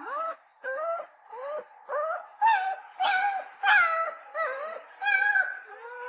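Puppy crying: a rapid series of short whining cries, about two a second, each rising and then falling in pitch. They grow louder through the middle and end with a longer, held cry.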